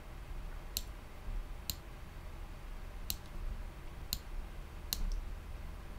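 Computer mouse clicking: about five sharp single clicks roughly a second apart while a web page is scrolled, over a faint low hum.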